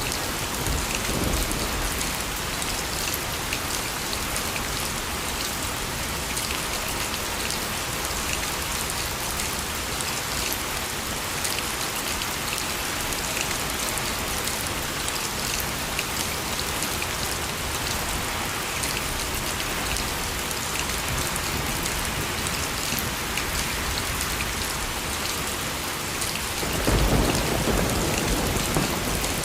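Steady rainfall, an even hiss of drops striking surfaces with fine individual drop ticks. A rolling thunder rumble dies away in the first second, and another low rumble of thunder swells near the end.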